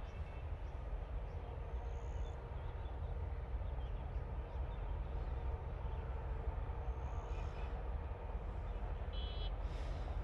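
Wind buffeting the microphone: a steady, uneven low rumble, with a few faint, brief high chirps.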